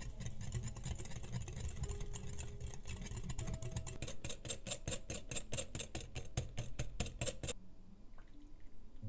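A metal whisk beating egg and sugar in a glass bowl, clicking against the glass in a rapid, even rhythm, which stops abruptly near the end.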